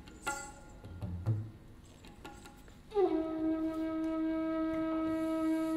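Opening film-score music: a few soft, sparse notes, then about three seconds in a wind instrument comes in with one long held note that sags a little in pitch as it starts.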